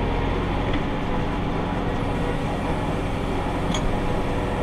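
Farm tractor running steadily while round-baling hay: an even engine drone with a strong low hum and no change in pace.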